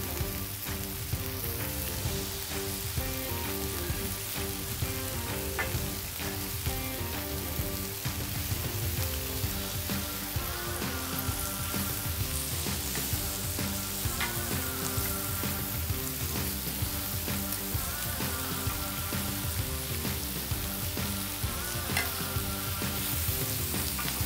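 Fried rice sizzling steadily on a hot griddle as it is mixed with spatulas, with a few sharp taps now and then. Background music plays underneath.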